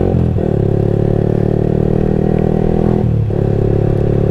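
Yamaha R15 sport bike's single-cylinder engine running under way, its pitch dropping sharply twice, about a quarter second in and again about three seconds in, as gears are changed.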